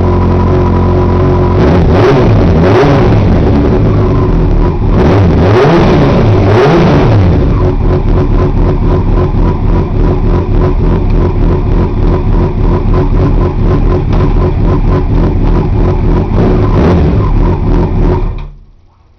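Yamaha FZ6's 600 cc inline-four through a Leo Vince aftermarket exhaust, running in neutral. It is revved up and back down about four times in the first seven seconds, then settles into an even, pulsing idle. The sound cuts off shortly before the end.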